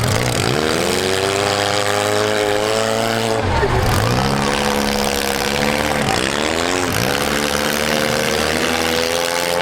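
Compact demolition derby cars' engines revving under hard throttle. The pitch dips sharply and climbs again about every three seconds as a driver backs off and accelerates, with other engines running underneath.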